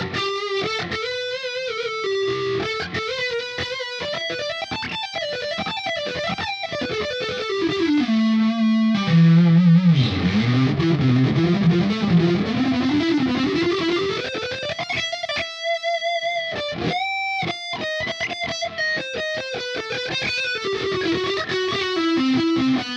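Squier Affinity Stratocaster electric guitar, played through a Line 6 POD HD500 effects processor, playing a single-note lead with string bends and vibrato. About nine seconds in the pitch dives low and climbs back up over several seconds, and a few quick high notes follow.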